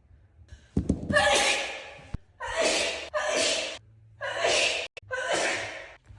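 A young woman's sneezing fit: about five loud sneezes in quick succession, the first the longest.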